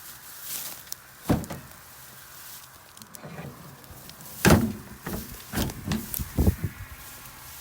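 A few sharp knocks and clunks: a single one about a second in, then a louder run of several from about four and a half to six and a half seconds.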